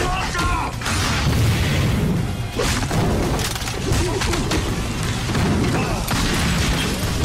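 Action-trailer soundtrack: dramatic music under a series of booms and crashing impact effects, one heavy hit every second or two.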